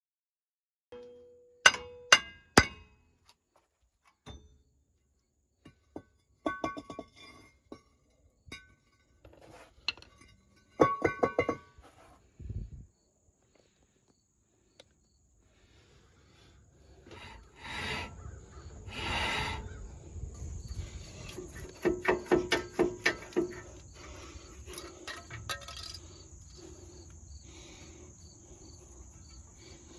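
Metal clanks and clinks from tools and brake parts being handled, several ringing briefly, with a quick run of evenly spaced knocks a little over two thirds of the way through. From about halfway a steady high insect drone sits underneath.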